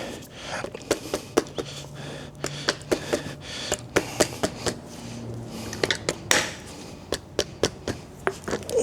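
Irregular light metallic clinks and taps, several a second, of hand tools and metal parts being handled.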